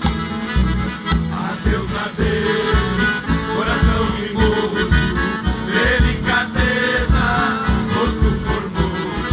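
Live band playing Brazilian country (caipira) music with a steady bass beat.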